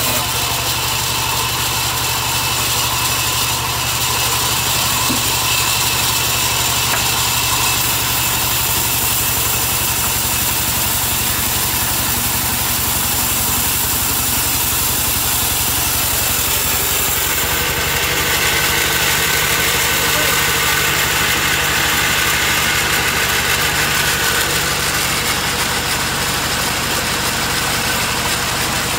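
Large sawmill band saw running steadily while its blade rips a long plank from a log. A constant low hum sits under a high hiss.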